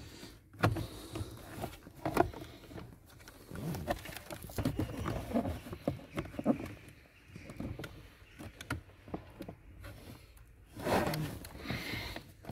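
Close hand-handling noise while working on the blower motor housing under a car's dashboard: scattered clicks, taps and rustles of plastic parts, with a louder rustling burst near the end.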